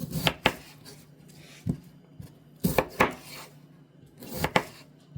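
Kitchen knife cutting potatoes on a cutting board: sharp, irregular knocks of the blade striking the board, single and in pairs, about a second apart.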